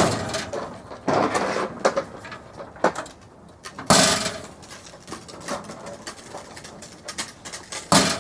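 Steel Craftsman rolling toolbox being handled while its top lock is tried: sharp metal bangs and rattles of the lid and drawers, with smaller clicks between. Loud knocks come at the start, about a second in, about four seconds in and near the end.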